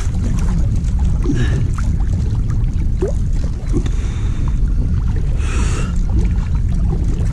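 Steady low rumble of wind buffeting an action camera's microphone, over water lapping against an inflatable float tube. Two brief splashy rushes of water, about a second and a half in and again past the middle.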